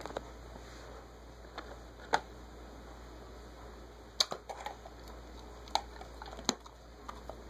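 Cocker spaniel chewing chicken jerky: scattered short, sharp mouth clicks and smacks, several bunched together about four seconds in.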